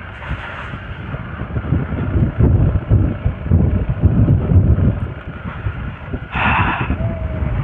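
Hero Xpulse 200 4V motorcycle being ridden, its engine rumble mixed with wind buffeting the microphone. There is a brief louder hiss about six and a half seconds in.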